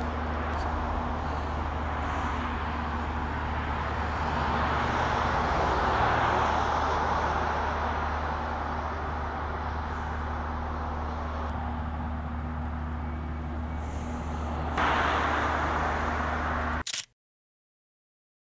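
Street traffic: steady road noise over a low hum, swelling as a car passes about four to seven seconds in. The sound jumps louder near fifteen seconds, then cuts off to dead silence about seventeen seconds in.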